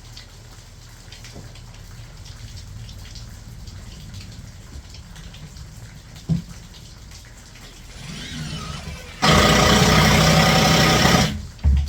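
Cordless impact driver running a deck screw into a barrel strap for about two seconds near the end, loud and even. Steady rain patters in the background, with a single knock about six seconds in.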